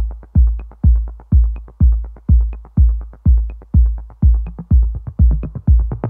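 Electronic dance music with a steady drum-machine kick drum, about two beats a second, and light ticking hi-hats between the beats.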